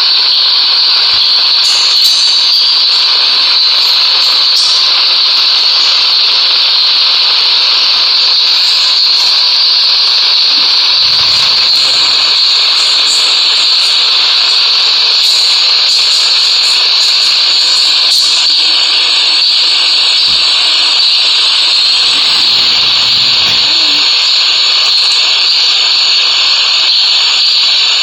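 GEMC 48-inch ceiling fan running, giving a loud, steady, high-pitched hiss of moving air that does not change.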